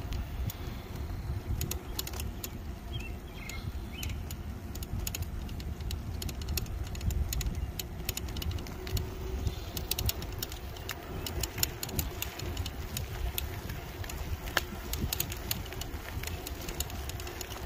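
Riding noise of an electric bike rolling along a paved trail: a steady low rumble of tyres and wind on the microphone, with many small rattling clicks from the bike.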